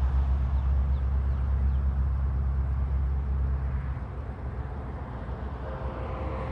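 A steady low vehicle-engine hum stops about two-thirds of the way through. Near the end a distant Amtrak locomotive horn begins, held as a steady chord about a mile off.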